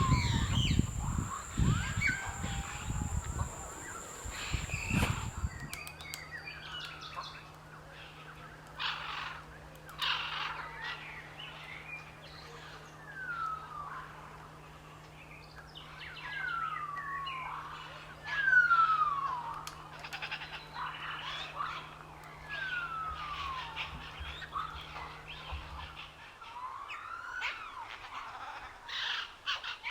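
Songbirds chirping, with a clear whistled call that slides downward in pitch repeating every few seconds among shorter chirps. A low rumble sits under the birds for the first few seconds.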